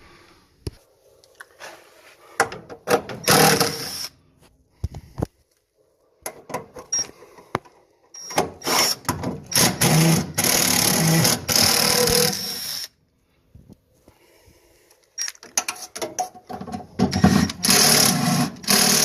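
Cordless drill/driver running in several bursts, the longest about five seconds, backing out the screws that hold the old inducer motor onto the furnace.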